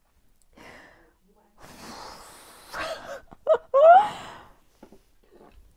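A woman breathing shakily and letting out a long breathy sigh, then two short high-pitched vocal squeaks about three and a half seconds in, the second rising in pitch: overwhelmed, speechless delight.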